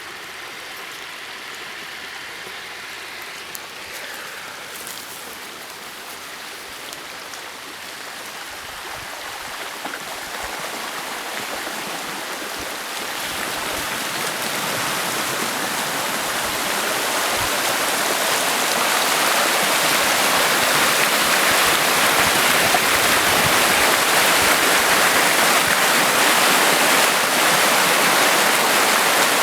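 Floodwater rushing down a creek: a steady roar of water that grows louder over the first two-thirds and then holds.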